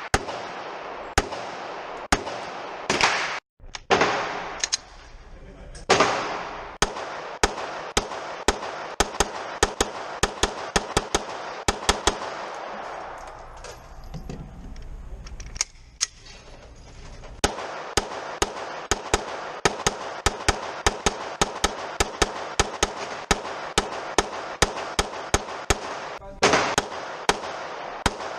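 Gunfire at a shooting range: many shots in quick succession. They come irregularly at first, thin out for a few seconds in the middle, then run steadily at about two or three a second. A couple of louder shots a few seconds in ring out longer.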